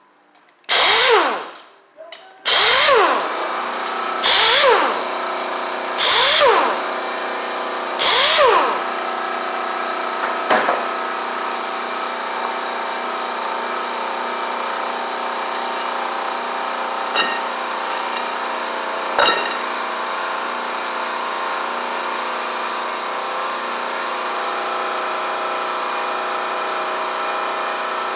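Air impact wrench run in five short bursts, each spinning up and back down, as it loosens the top-end bolts of a Harley Twin Cam engine. Underneath, a steady machine hum starts a few seconds in and carries on, with a few sharp metallic clicks later.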